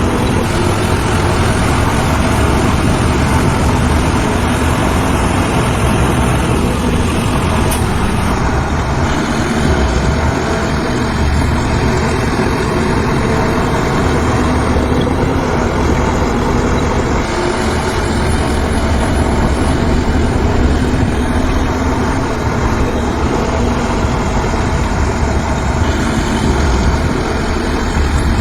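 Diesel engines of heavy earthmoving machinery running steadily, a continuous deep rumble.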